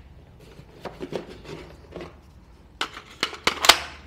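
Flarm F4 AR-15-style carbine being handled: a few soft knocks, then about four sharp metallic clicks and clacks in the last second and a half as a magazine is fetched and fitted to the rifle.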